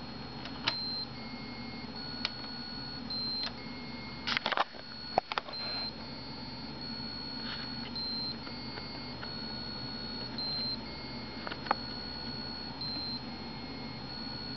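Electronic tones generated by an MSP430 LaunchPad microcontroller board. A continuous high-pitched beep steps slightly up and down in pitch every second or so, and short lower beeps come in every few seconds. A few sharp clicks sound along with them, the loudest a cluster about four to five seconds in.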